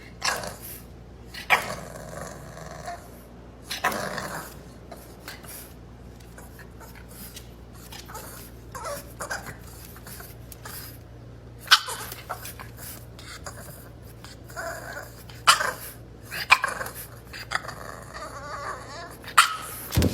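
Bulldog puppy making short, scattered growls and whines, the sounds of an angry pup that wants to be let out.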